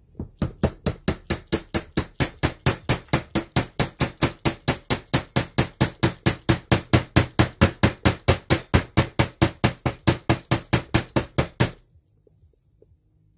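Rapid, steady hand-tool tapping, about four sharp taps a second for nearly twelve seconds, stopping abruptly near the end: a new roller bearing being driven onto the armature shaft of a VW Mk1 blower motor.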